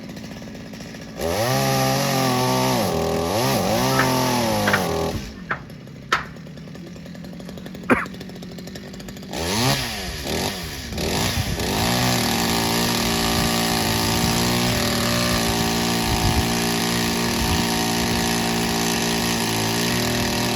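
Two-stroke chainsaw idling, then revved up about a second in, its pitch sagging twice under load, before dropping back to idle with a few sharp clicks. After a couple of quick revs it runs at a steady high speed from about halfway through until near the end.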